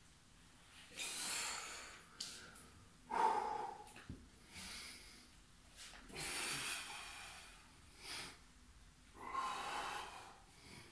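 A man breathing hard with effort during exercise repetitions: about six loud, forceful breaths, one every second or two, a couple of them carrying a short voiced grunt.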